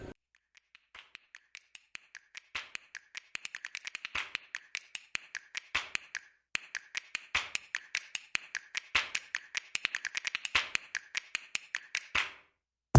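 A long run of sharp, dry clicks or taps with silence between them. They start sparse, then quicken into dense runs, pause twice briefly, and stop just before the end.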